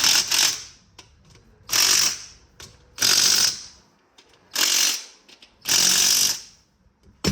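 Ratchet wrench clicking in five short bursts, about one every second and a quarter, as the timing chain tensioner bolts are run down snug.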